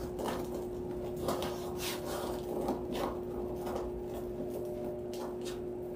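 Deco mesh being gathered and scrunched by hand, giving a string of short, scratchy rustles and crinkles over a steady background hum.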